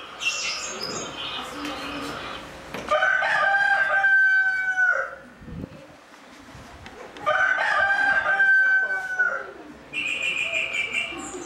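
A rooster crowing twice, each crow about two seconds long, with small birds chirping before the first crow and after the second.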